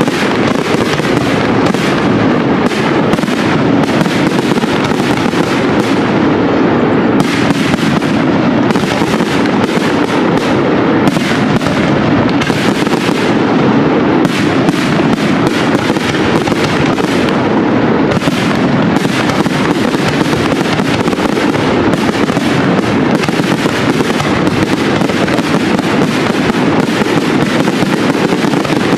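Large aerial fireworks display at close range: a dense barrage of shell bursts and crackling stars, the bangs and crackle overlapping without a break.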